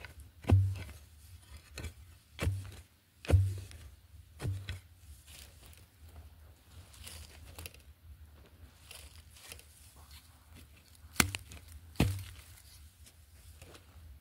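A metal digging blade chopping into dry soil and roots, several strikes in the first few seconds, then gloved hands scraping and crumbling loose earth away, with two sharp knocks close together near the end.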